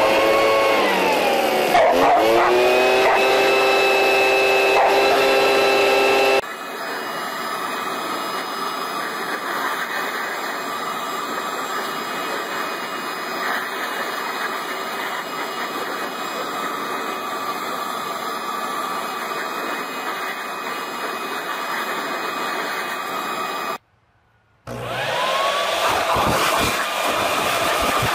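Handheld leaf blowers running in a string of short clips, their motor whine dipping and rising as they spin down and up, with dogs barking and snapping at the nozzle. Near the end the sound cuts out for under a second, then another blower spins up.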